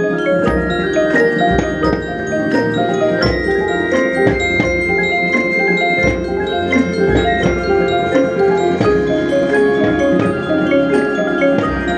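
Marching band front ensemble playing a fast passage of struck notes on marimba, xylophone and glockenspiel, over repeated low hits.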